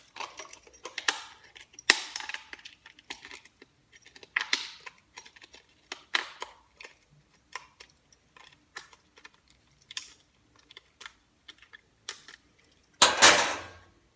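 A beer can being shotgunned: a run of clicks, taps and short hissy bursts from the can being punctured, opened and drained, then one loud rush of noise about thirteen seconds in.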